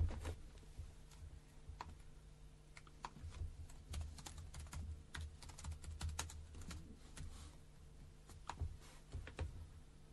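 Typing on a computer keyboard: quick, irregular key clicks with soft thumps, faint over a steady low hum of studio equipment.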